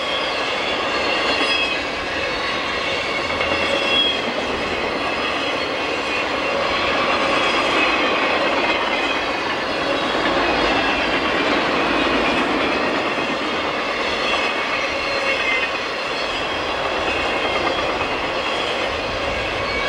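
Intermodal freight train of double-stack container cars rolling past at speed: a steady, loud rumble of wheels on rail, with short high wheel-squeal tones coming and going.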